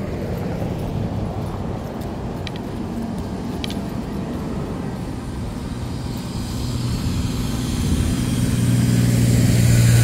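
Street traffic: a motor vehicle's engine hum over general road noise, growing steadily louder over the last few seconds as the vehicle approaches.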